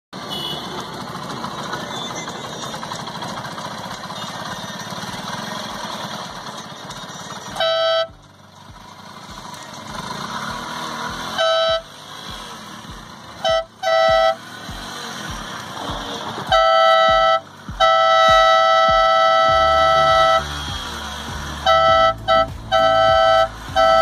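Twin-trumpet air horn sounding a two-note chord in repeated blasts: a few single blasts, then two long ones, then a run of quick short toots near the end. Before the first blast there is only a steady rushing noise.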